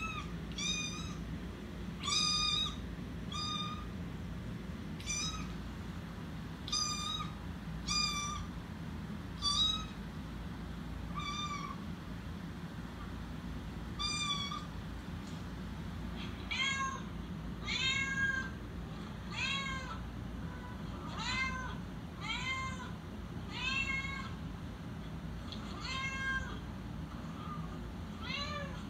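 Domestic cat meowing over and over: short, even-pitched mews in the first half, then from about halfway longer meows that rise and fall, coming about once a second.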